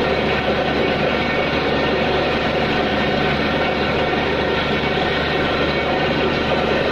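Borewell drilling rig running steadily under load while drilling: a loud, unchanging engine drone.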